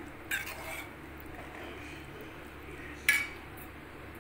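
Metal spatula clattering and scraping against a metal kadai while stirring chicken in gravy, with a sharp clank about three seconds in as the spatula is set down in the pan.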